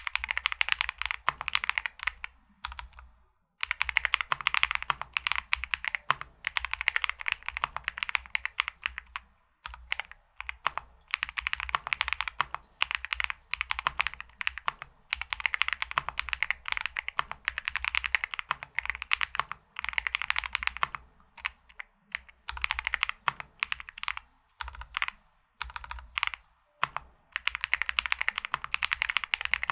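Wuque Studio Aurora x Mizu mechanical keyboard being typed on quickly, a rapid run of key clacks in bursts of several seconds with brief pauses between them.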